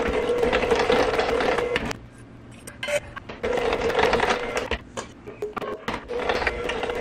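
Electric hand mixer beating cake batter as wet and dry ingredients are added in turn. It runs in three bursts of about two seconds each, with short pauses between.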